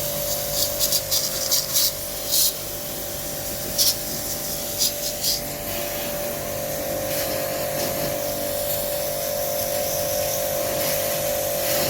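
Jet pump pressure washer running with a steady motor whine while its water jet sprays a window air conditioner during cleaning. Several short hissing bursts of spray come in the first half.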